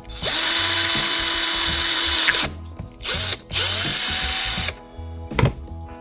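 Small electric drill running in three bursts, the first about two seconds long, its motor spinning up at the start of each. A single sharp knock near the end.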